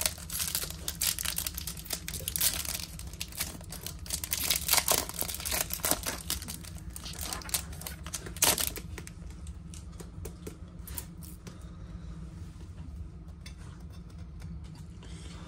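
Plastic wrapper of a Topps baseball card pack crinkling and tearing as it is ripped open, with the loudest rip about eight and a half seconds in. After that, fainter rustling and clicking of the cards being handled.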